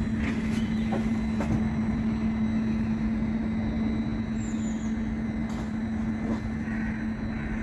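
Light-rail tram with a steady electrical hum over a wash of outdoor traffic noise, with a few faint knocks in the first second and a half and another near the end.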